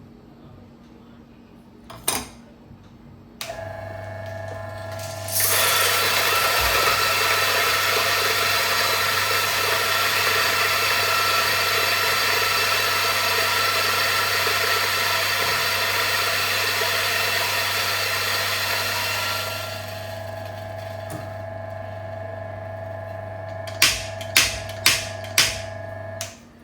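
Mazzer Philos flat-burr espresso grinder: its motor starts with a steady hum, then grinds a dose of espresso beans loudly for about fourteen seconds. It keeps running more quietly once the burrs are empty and stops just before the end. Four sharp knocks come shortly before it stops.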